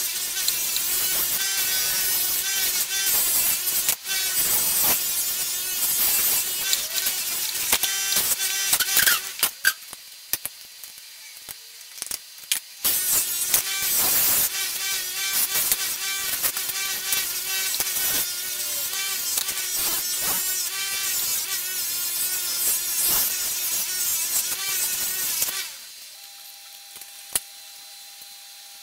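A 6-inch Bülle bench polisher runs with a steel machete blade pressed against its spinning cloth buffing wheel: a steady motor tone under a harsh rushing hiss. The sound drops away for about three seconds, about ten seconds in, and stops a few seconds before the end.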